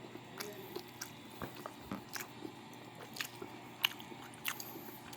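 A person chewing and biting food close to the microphone, with irregular sharp, crunchy clicks from the bites and chews.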